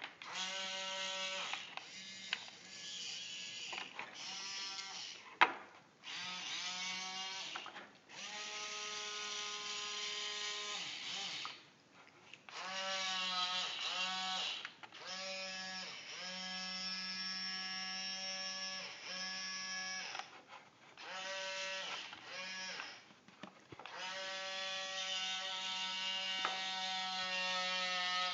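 Small robot arm's electric gear motors whining in a dozen or so stop-start bursts of one to three seconds as its joints swing, several bursts rising in pitch as a motor spins up. A sharp click about five seconds in.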